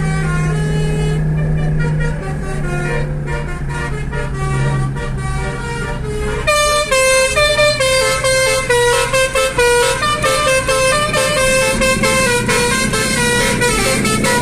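Basuri, a multi-trumpet musical air horn on a vehicle, playing a fast melody of short notes that starts about six seconds in, over the steady hum of the vehicle's engine running.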